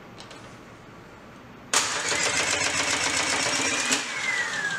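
Spring-charging motor of a Hyundai HAT16 air circuit breaker starting suddenly a little under two seconds in and running for about two seconds with a slowly rising whine, then cutting off abruptly and winding down with a falling whine.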